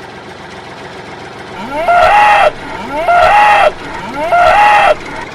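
A cow mooing three times, each moo a short call that rises and then holds for about half a second, about a second apart.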